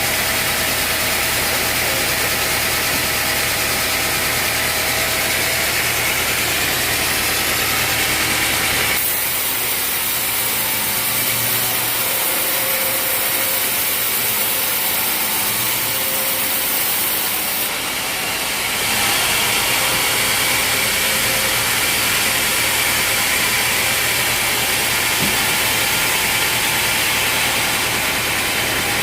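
A machine engine running steadily, with a steady hum and hiss. The sound changes abruptly about nine seconds in and switches back about ten seconds later.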